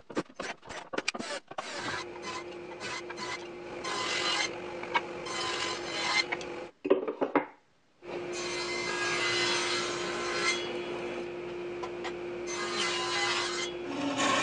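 Homemade plywood 6x48-inch belt sander running with a steady hum, wood sanded against the belt in strokes with brief pauses, with a few sharp knocks at the start. Near the end the hum changes to a lower tone as a bandsaw cuts wood.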